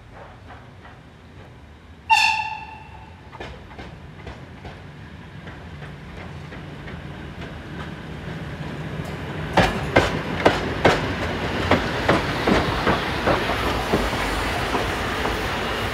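Steam locomotive 52 3879, a 1944 Wiener Lokomotivfabrik Class 52 2-10-0, gives a short whistle blast about two seconds in. It then draws closer and passes, its running noise building steadily, with wheels clacking over rail joints in a quick run of knocks from about halfway on.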